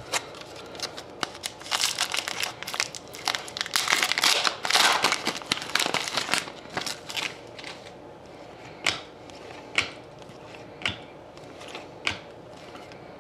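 Foil wrapper of a trading-card pack crinkling and tearing as it is ripped open by hand. Afterwards come about four light sharp clicks, roughly a second apart, as the cards are handled.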